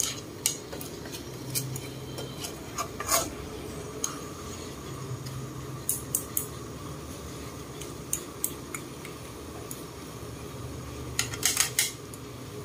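A spatula and chopsticks clinking and scraping against a stainless steel wok as squid in a thick chilli sauce is tossed. The knocks come irregularly, with a quick run of them near the end, over a low steady hum.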